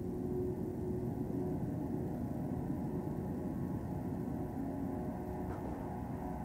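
Electronic film score: a low, dense drone with a few held tones, steady throughout, made with a groovebox and Kyma sound-design system.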